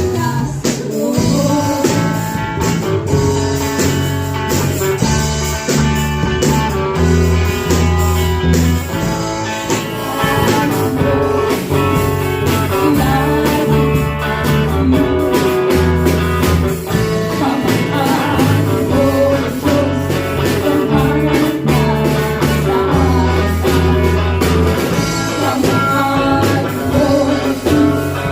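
A band playing upbeat music, with drums, a bass line, guitar and a voice singing.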